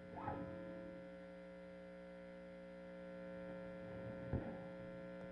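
Faint, steady electrical mains hum, with a soft click a little over four seconds in.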